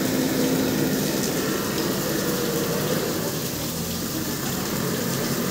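Steady rushing of muddy floodwater running across a road, with rain falling.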